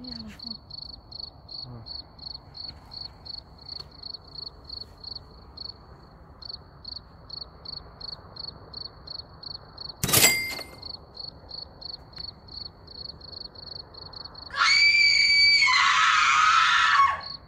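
A cricket chirping steadily, about three chirps a second. About ten seconds in there is a single sharp crack. Near the end a loud, high-pitched shriek lasts nearly three seconds.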